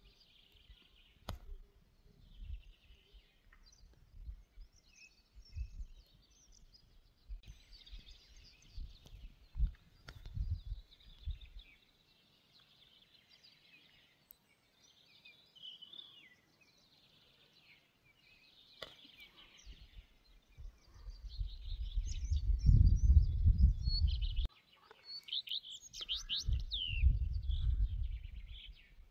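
Small birds chirping and trilling on and off in a mountain meadow, with wind buffeting the microphone in gusts, loudest in two long gusts in the second half.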